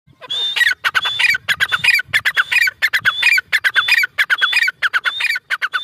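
Gray francolin calling: a loud, rhythmic series of about ten shrill repeated phrases, each a high note followed by quickly falling notes, starting a moment in.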